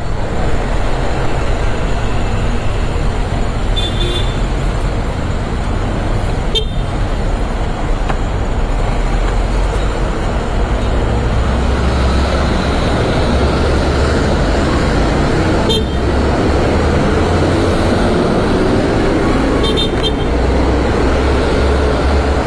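City road traffic heard from a motorcycle: a steady rumble of engines, with short high beeps about four seconds in and again near twenty seconds, and two sharp clicks.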